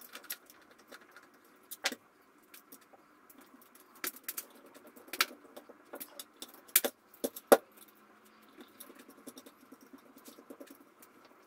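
Scattered metal clicks and clinks of a hand screwdriver driving screws back into a Paslode IM350 nail gun's housing, with a few sharper knocks around the middle.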